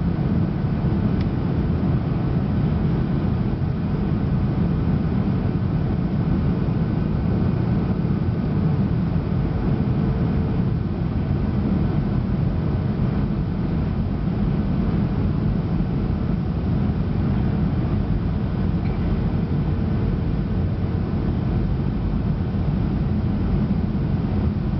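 Boeing 737 cabin noise heard by the window on approach: a steady low rumble of engines and airflow. A faint steady hum joins in for several seconds midway.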